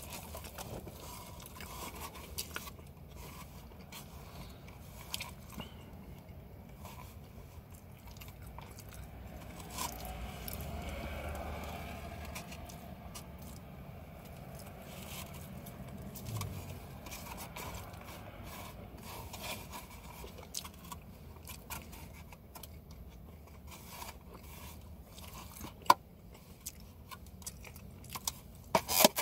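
A person chewing and biting into a chili dog, with light mouth sounds and scattered small clicks and scrapes from the takeout container; one sharp click about 26 seconds in is the loudest.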